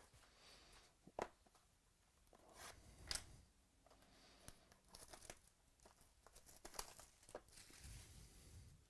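Faint crinkling and tearing of trading-card packaging as packs and cards are handled, with a few sharp clicks about a second in, around three seconds in and past seven seconds.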